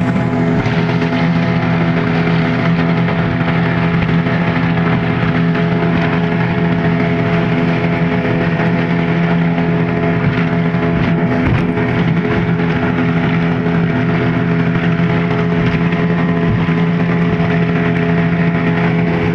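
Speedboat's outboard motor running steadily at high speed, a constant-pitch drone heard from aboard, over the rush of water along the hull.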